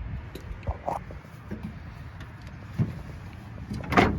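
A few light knocks and clicks, with one louder knock about four seconds in, over a low rumble: the swing-out side doors of a van and its interior being handled.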